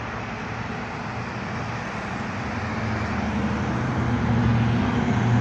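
Street traffic noise with a steady low engine hum that grows gradually louder.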